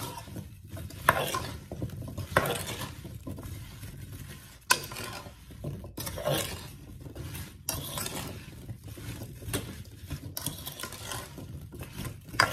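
Seasoned, cut turnip roots being stirred in a cooking pot with a utensil, which scrapes and clinks against the pot at uneven intervals.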